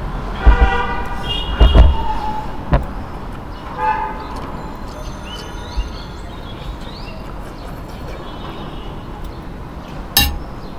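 Vehicle horns honking in street traffic: several short toots close together near the start and another about four seconds in, over a steady traffic hum. A few sharp clicks and low thumps sound close by.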